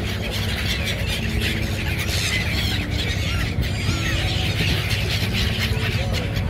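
A large flock of gulls calling, a dense chorus of short overlapping squealing calls while they crowd in to be fed, over a low steady rumble.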